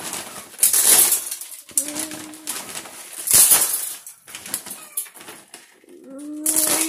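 Handfuls of dried mealworms mixed with oyster shells are scooped by hand out of a plastic feed bag and dropped into a tub: the bag crinkles and the handfuls rattle in three loud bursts, about a second in, halfway through and near the end. A short, low cooing call sounds twice, about two seconds in and near the end.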